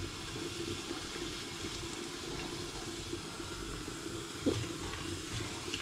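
Steady rushing, watery hiss from pots cooking on a gas hob, with one short scrape or knock about four and a half seconds in.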